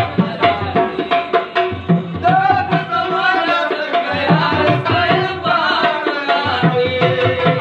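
Live Pashto ghazal music: a hand-played barrel drum beating a quick, steady rhythm, with a man's singing voice rising over it in two phrases.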